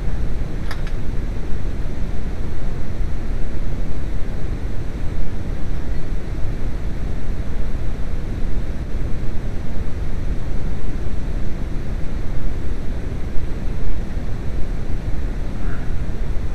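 Steady, loud low rumble of background noise, with a faint click about a second in.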